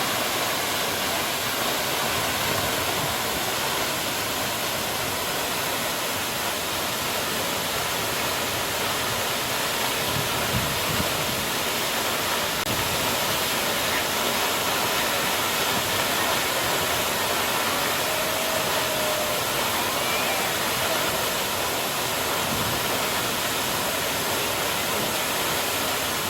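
Jeongbang Waterfall, a coastal waterfall on Jeju, sending a steady, loud rush of falling water.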